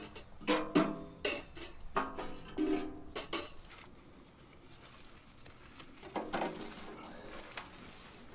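Metal clanks and knocks from a small steel wood-burning stove and its flue pipe being handled and fitted, in a quick run in the first few seconds and again around six seconds in.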